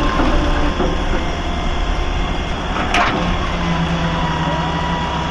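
Heavy diesel machinery engine running steadily with a deep rumble, and one sharp metallic knock about three seconds in.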